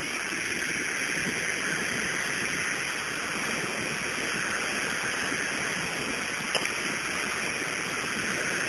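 Steady rushing noise over a phone line: the cabin noise of a small airplane in flight, heard through the caller's phone.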